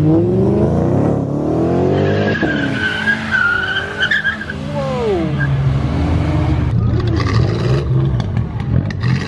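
A car accelerating hard, its engine revs climbing for about two seconds, then tires squealing for about two seconds. The engine drops back to a low, steady running note afterwards.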